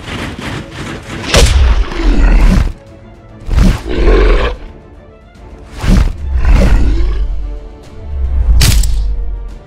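Cartoon sound effects over background music: about four loud surges of roaring, each with a deep booming rumble. A sharp crack comes near the end.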